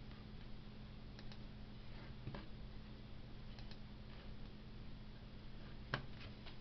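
A few faint, scattered clicks over a steady low hum, with one slightly sharper click near the end.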